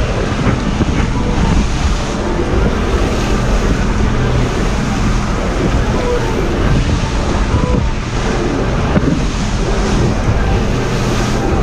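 Wind buffeting the microphone over the steady rush of a boat running through rough sea, with a faint engine hum underneath.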